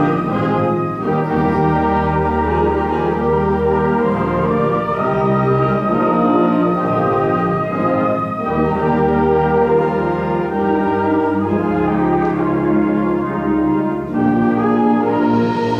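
Middle school concert band playing, the brass carrying sustained chords over a low bass line.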